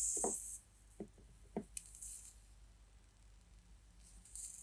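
Flux in the solder wire sizzling as it melts on a hot soldering iron tip: a loud hiss in the first half second, then shorter hisses about two seconds in and near the end, with a few faint light taps between.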